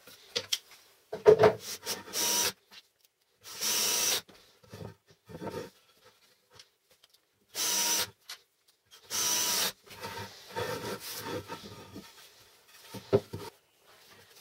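Cordless drill driving screws into wood in four short bursts of about half a second each. Knocks and clatter of the wooden parts and clamps being handled come between the bursts, the sharpest about a second in.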